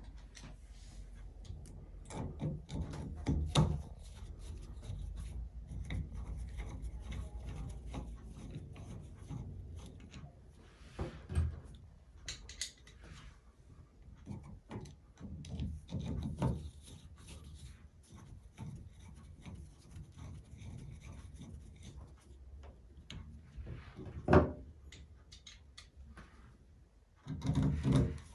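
Hand tools and small metal parts worked on a tub/shower faucet valve during a cartridge replacement: screws being fastened by hand with a screwdriver, with rubbing and scraping and many small clicks. One sharp knock sounds about three quarters of the way through.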